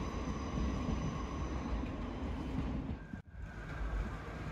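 Train running alongside a station platform: a steady low rumble with a faint high whine. It breaks off abruptly about three seconds in, and a similar steady rumble follows.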